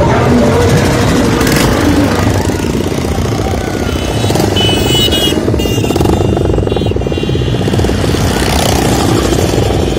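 Motorcycle engines running on the road, with heavy low rumble and buffeting. Music plays underneath.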